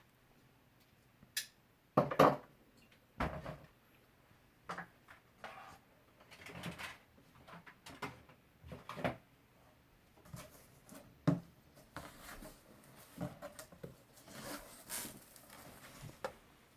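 Irregular handling noises, knocks, clicks and rustles of objects being moved and set down, with the loudest knocks about two seconds in.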